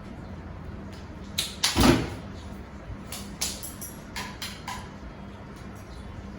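Household handling noises: a loud knock and clatter about two seconds in, then several lighter clicks and taps, over a steady low hum.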